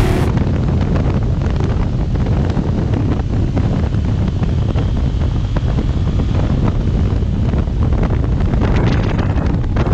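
Steady wind noise buffeting the microphone of a motorcycle-mounted camera at road speed, with a deep rumble of road and engine beneath it.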